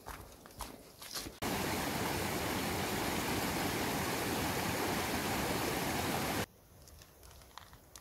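Footsteps on a rocky trail, then a loud, steady rush of a stream flowing over stones, starting suddenly about a second and a half in and cutting off suddenly about five seconds later.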